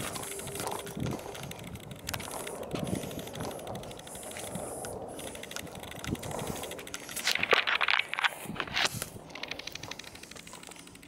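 Footsteps and rustling of a hiker walking along a dirt trail through dry grass, made of irregular crackles and clicks, with a louder patch of crackling about seven seconds in.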